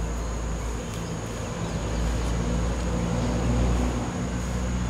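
Low engine rumble of a motor vehicle running nearby, a little louder past the middle, over a steady high-pitched insect drone.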